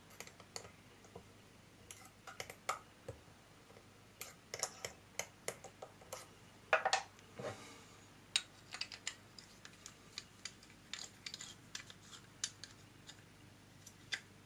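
Record Power SC2 mini chuck being taken apart by hand: irregular light metal clicks and taps from the chuck key, jaws and jaw screws against the chuck and the wooden bench, the loudest about seven seconds in.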